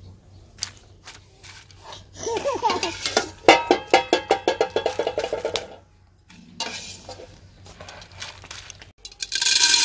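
Wire skimmer scraping and clinking against an aluminium pot as popped popcorn is scooped out and tipped into a bowl, with a louder rustling clatter about nine seconds in. In the middle comes a rapid run of pitched squeaks, about five a second, for around three seconds.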